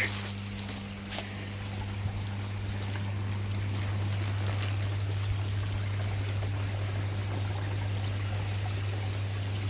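Pond water trickling and running steadily, over a steady low hum.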